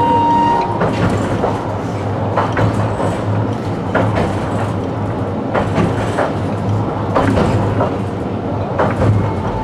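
Toyohashi Railway T1000 'Hotram' low-floor tram running, heard from inside the car: a steady low hum with irregular clicks and knocks from the wheels on the rails. A high steady whine stops about half a second in.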